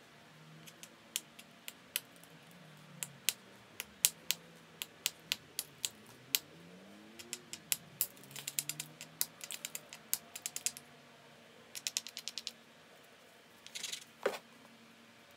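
A small abrading stone rubbed and scraped along the edge of a stone biface, grinding the edge to prepare it for the next flake removals: sharp clicks, some single and some in quick runs.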